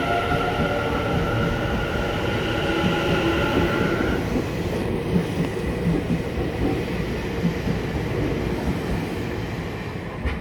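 Electric train pulling away from the station: a steady high-pitched whine over the running rumble stops about four seconds in, leaving the rumble of the wheels with scattered rail-joint clatter.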